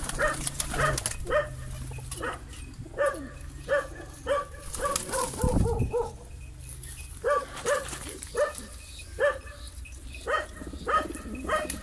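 A dog barking repeatedly, in runs of short, high barks, two or three a second, with brief pauses between the runs.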